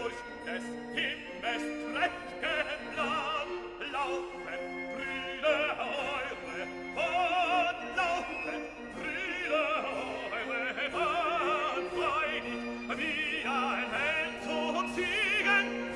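Background music: a classical, operatic piece, a singing voice wavering in vibrato over held orchestral notes.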